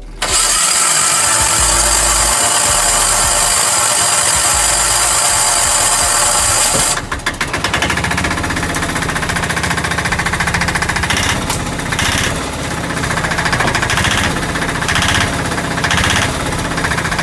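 Bajaj auto-rickshaw diesel engine: the electric starter cranks it for about seven seconds, then the engine fires and runs with a fast, even clatter, picking up revs a few times. It is running on a freshly replaced head gasket, and the engine's sound is now back to normal.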